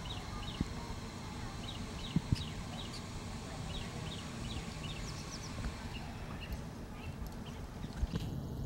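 Outdoor ambience: a steady low rumble with small birds chirping in runs of short high notes, and a couple of sharp knocks about two seconds in.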